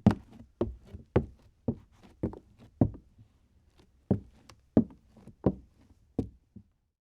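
Sneaker footsteps on a hardwood floor, tiptoeing or crouch walking: separate soft knocks about every half second, with a short pause midway. The steps stop shortly before the end.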